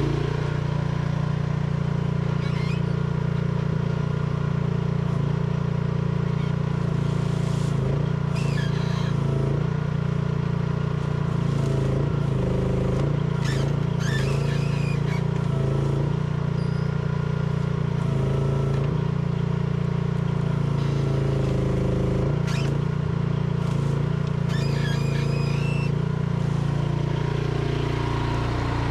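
Micro excavator's small engine running steadily, its pitch sagging and recovering several times as the hydraulics take load while the bucket digs. Short bursts of scraping and crackling from the bucket in the reeds come and go.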